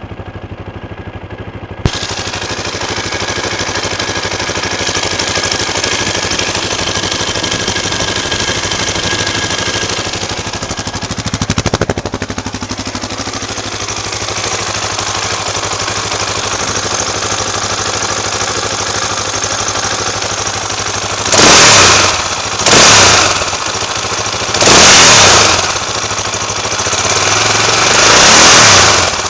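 2004 KTM LC4 640's single-cylinder engine idling warm without choke, oil at 60 °C, through an Akrapovic slip-on exhaust, with a sharp click about two seconds in. Near the end the throttle is blipped four times, the last rev held longer.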